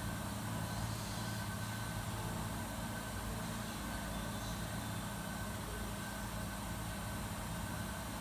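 Steady low machine hum with a thin, constant high whine over it, unchanging throughout: continuous running noise of kitchen equipment such as fans or refrigeration.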